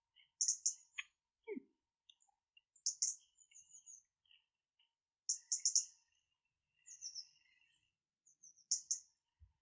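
Small songbirds chirping and twittering in short high bursts, about five times, with softer trills between.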